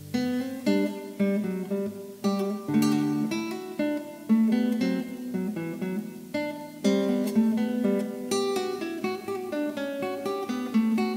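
Background music played on acoustic guitar: a run of plucked notes and chords.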